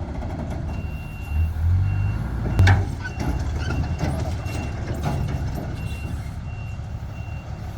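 Reversing alarm on a heavy construction machine, beeping steadily with a single high-pitched tone, over a diesel engine running. The engine swells about a second in and there is a sharp clank about two and a half seconds in.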